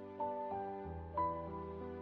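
Slow, sad background music: a few melody notes entering over held low tones.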